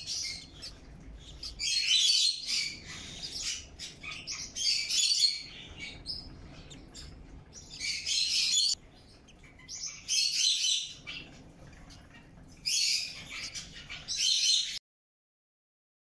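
Day-old Java sparrow and Bourke's parrot chicks cheeping shrilly in about six bouts of a second or so each, the begging calls of hatchlings waiting to be fed.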